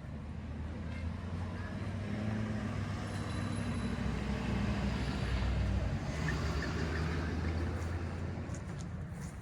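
A motor vehicle's engine running, growing louder toward the middle and then fading, as of a vehicle driving past.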